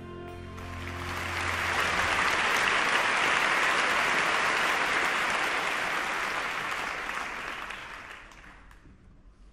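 Audience applauding, swelling over about two seconds and dying away near the end, while a held musical chord fades out at the start.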